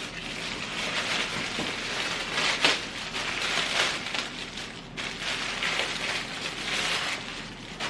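Plastic packaging crinkling and rustling as packages are torn open by hand: an uneven, continuous crackle with a sharper rip about two and a half seconds in.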